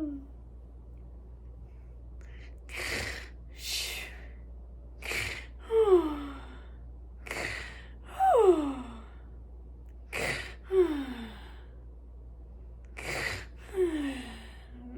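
A woman's mock snoring: a noisy breath in, then a louder whistling sigh out that falls in pitch. The cycle repeats about every two and a half seconds, four times, after two breaths without the sigh.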